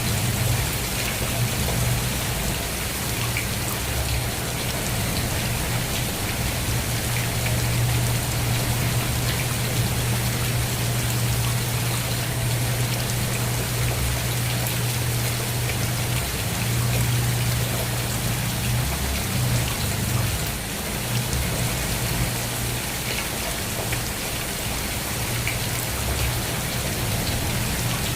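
Steady rain falling and pattering on a surface, over a strong low rumble that dips briefly about two-thirds of the way through.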